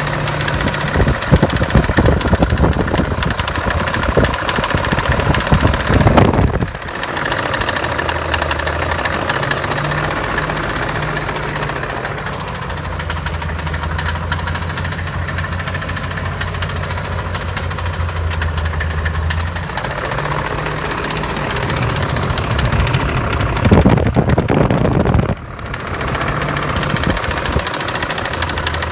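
BMW E39 M5's 4.9-litre V8 engine running with a fast, steady clicking over it. The engine sound swells and then drops off sharply twice.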